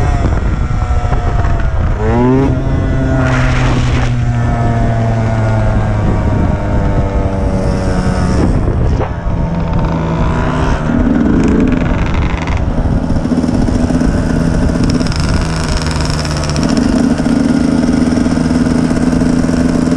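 Dirt bike engine revving up quickly about two seconds in, then running at steady revs that slowly drop, with the pitch shifting up and down again later.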